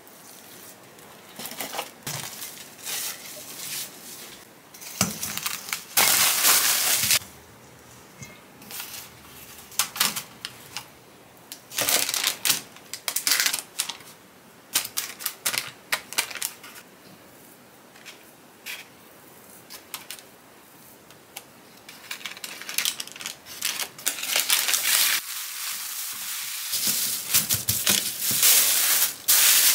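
Cookie dough being worked by hand: a spatula scraping and slapping chocolate chip dough around a stainless steel mixing bowl, then a spoon and fingers pressing dough onto parchment paper, in irregular scraping and tapping strokes. Near the end plastic wrap crinkles as leftover dough is rolled up in it.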